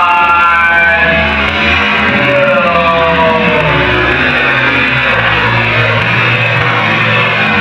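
Rock music playing, with pitched lines gliding up and down.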